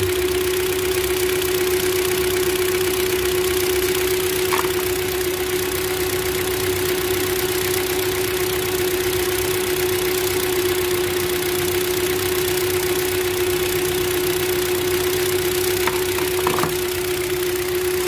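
Hyundai Elantra 1.6 four-cylinder engine idling roughly with a misfire, shaking, later traced to a dead ignition coil on cylinder 4. A steady tone hums over the engine throughout, with a couple of faint clicks.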